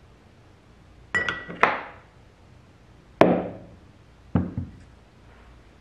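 Ceramic lids and dishes clinking and knocking as they are lifted and set down on a wooden table. There is a double clink about a second in, a sharper ringing clink around three seconds, and a duller knock a second later.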